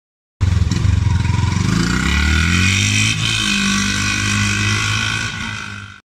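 Yamaha FZ V2.0's 149 cc single-cylinder engine running under way, its exhaust note rising in pitch as the bike accelerates, then holding steady before fading out.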